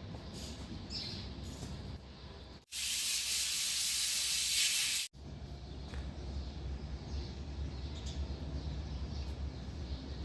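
A steady hiss lasting about two and a half seconds, starting and stopping abruptly a few seconds in.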